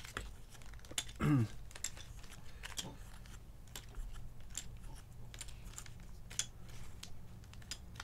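Loose 3D-printed plastic keycaps clicking against each other as they are dropped into and shuffled in a small plastic zip bag, irregular light clicks throughout with some rustling of the bag.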